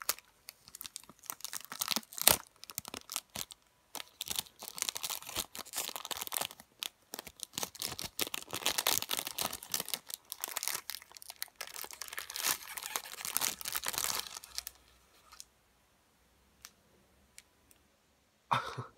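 Clear plastic wrapper crinkling and tearing as a phone case is worked out of it, in quick irregular bursts, with one sharp click about two seconds in. The handling stops about fifteen seconds in.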